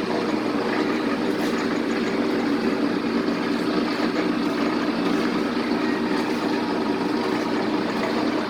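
Victor lathe running under power: its headstock gears and feed drive give a steady mechanical whir with several held tones, even in level throughout.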